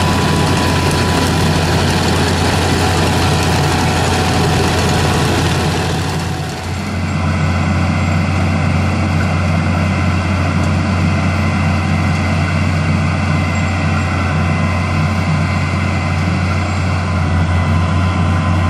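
Dewulf Mega R3000 self-propelled potato harvester running under load, its diesel engine and working machinery making a steady heavy drone. About six and a half seconds in the sound dips briefly and carries on as a slightly lower, duller drone while the harvester unloads its bunker.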